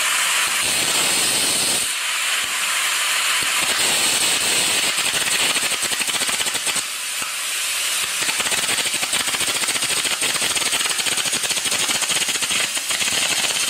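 Air carbon arc gouging: the carbon rod's arc crackling under a steady blast of compressed air that blows the molten weld metal out, running loud and continuous.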